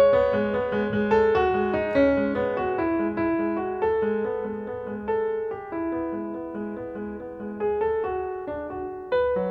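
Solo piano playing: a low note struck over and over under a slow line of higher notes, with a louder chord near the end.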